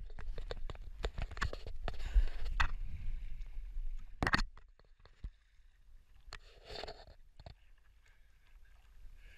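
Paddling a stand-up paddleboard: water splashing and sloshing with short knocks against the board, over a low rumble of wind on the microphone. It drops away to faint, scattered water sounds about halfway through.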